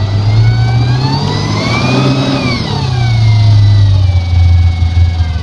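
Malibu 247 ski boat's inboard engine and ZF Ski-VEE drive running loud, revving up about a second and a half in and dropping back to a lower speed by about three seconds in, with whining tones that rise and fall with it.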